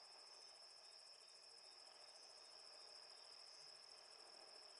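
A faint, steady, high-pitched chorus of night insects, crickets, trilling without a break; otherwise near silence.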